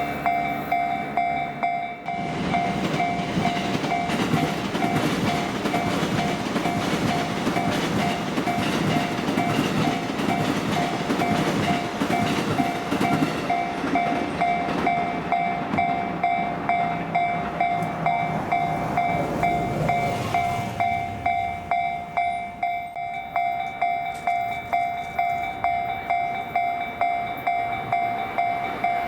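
Japanese level-crossing warning bell ringing without a break in a quick, even beat. About two seconds in, a train begins passing over the crossing with a rumble and the clack of wheels over rail joints. The train noise fades out about twenty-one seconds in, leaving the bell ringing on.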